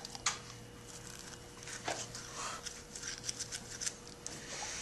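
Manual toothbrush scrubbing the back teeth, a quick irregular scratchy brushing. A faint steady hum lies underneath.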